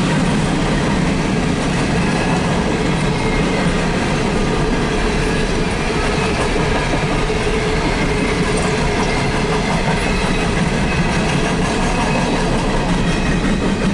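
Empty CSX coal hopper cars rolling past: a steady, loud rumble and clatter of steel wheels on the rails.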